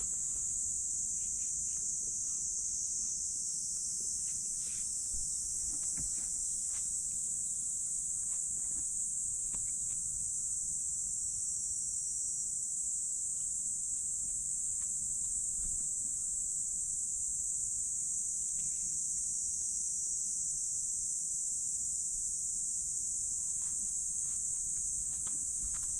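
Steady high-pitched insect chorus droning without a break, with a few faint scattered clicks beneath it.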